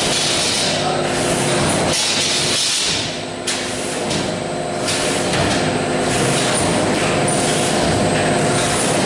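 Schad E85-2 meat looper machine and processing-room machinery running with a steady hum, while meat is tied into twine loops. Hissing comes and goes several times, and there is a short click about three and a half seconds in.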